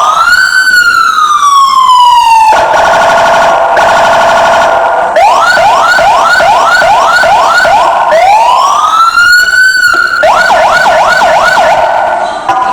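Senken CJB 200 SA electronic car siren sounding loudly and cycling through its tones: a long wail that rises and slowly falls, a fast warble, then a string of quick rising whoops, another long rise, and more quick whoops.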